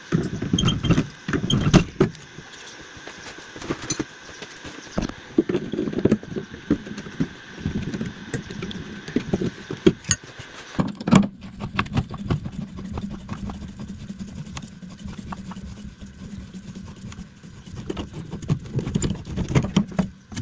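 Hand tools clicking, knocking and clinking on an old gas boiler's fittings and copper pipework as it is being disconnected. A steady low hum sets in about halfway through under the clicks.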